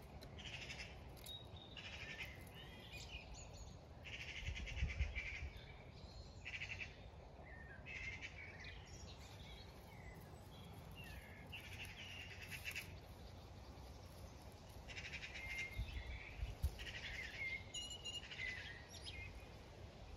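Songbirds singing: a series of short trilling phrases, one after another, with a couple of low rumbles about five seconds in and again near the end.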